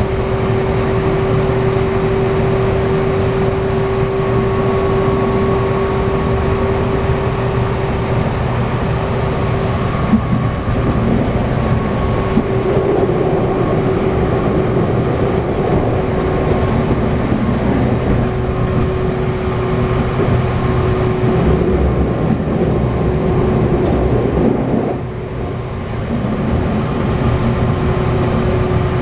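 Inside a Meitetsu 6000 series resistance-controlled electric train running between stations: steady rail and wheel noise with a steady whine from the traction motors and gears, dipping briefly about 25 seconds in.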